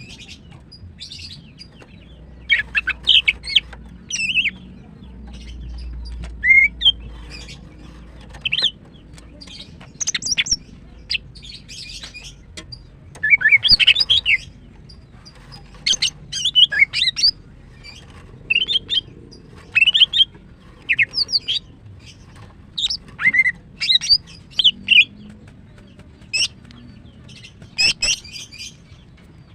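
Female greater green leafbird (cucak ijo) calling in short, repeated bursts of chirping notes, one burst every second or so with short pauses between. These are the excited calls of a female in breeding condition.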